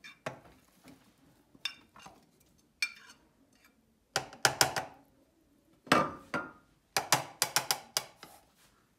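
Metal spoon clinking and scraping against a ceramic bowl and the plastic bowl of a mini food chopper as chopped celery and herbs are spooned in. Scattered sharp taps, with a quick run of taps near the end.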